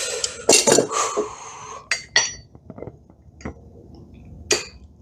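Irregular hammer blows on a railroad-spike axe head at the anvil, each a sharp metallic clink, several leaving a brief ringing. The blows come unevenly: a cluster in the first second, a pair about two seconds in, and single strikes later.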